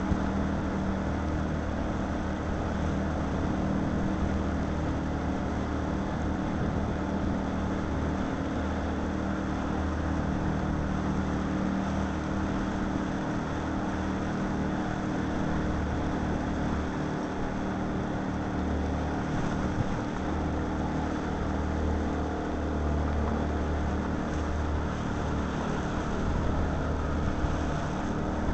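A small boat's outboard motor running steadily, with wind and water noise.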